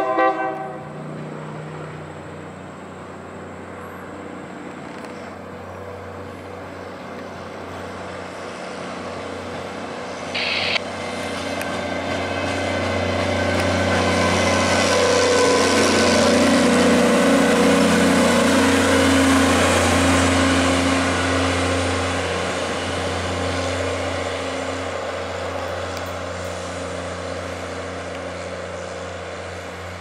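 Loram rail-vacuum track machine passing on rails: a steady diesel drone with wheel and rail rumble that builds as it goes by, loudest about halfway through, then fades. A short horn toot right at the start, and a brief high-pitched burst about ten seconds in.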